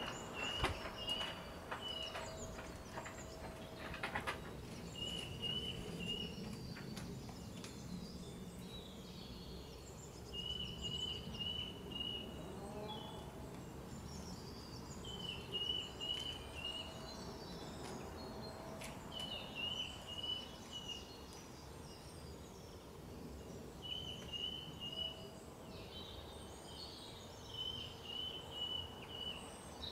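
Songbirds singing: one bird repeats a short, fast trilled phrase every four seconds or so, with scattered higher chirps from other birds over a faint steady background noise.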